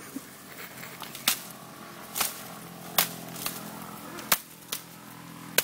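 Elephant snapping and whacking fodder stalks with its trunk: about six sharp cracks at irregular intervals. A low steady hum comes in a little after two seconds.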